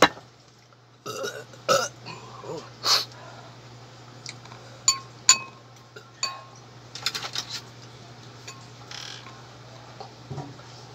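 Eating sounds: a burp and other mouth noises in the first few seconds, then a metal spoon clinking against a dish a handful of times, with small clatters near the middle.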